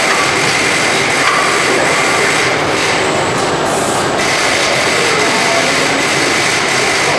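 Steady, loud factory machinery noise: a dense whirring hiss with a faint steady high whine, from an automated assembly line.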